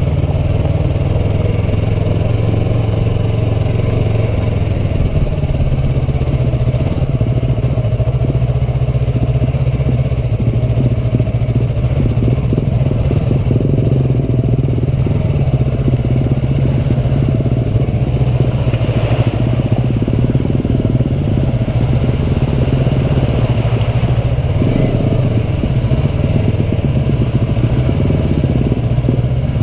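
Sport motorcycle's engine running at low, steady revs while ridden slowly over a rutted, muddy dirt road, with small shifts in revs now and then.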